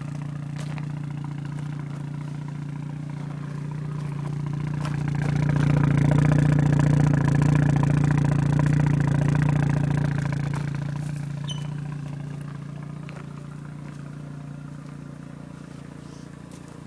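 Mazda RX-7 FD3S 13B twin-turbo rotary engine idling steadily through its aftermarket exhaust. The pitch holds steady throughout. It grows louder through the middle as the microphone passes close to the tailpipe, then fades again.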